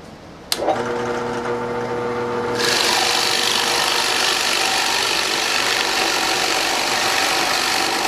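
Drill press switched on with a click about half a second in, its motor humming; about two and a half seconds in, a 1.5-inch Forstner bit starts boring into a cedar fence-picket board, a steady loud cutting noise over the motor hum.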